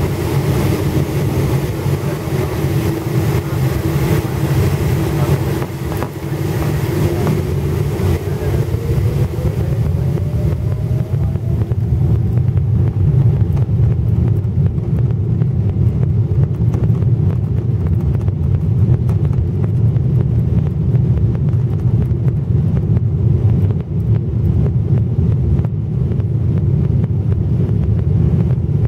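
Boeing 777-300ER's GE90-115B engines and runway rumble heard from inside the passenger cabin during the takeoff roll: a deep steady rumble, with an engine whine rising in pitch about six to eleven seconds in as the engines spool up to takeoff thrust, and the noise growing a little louder as the jet accelerates.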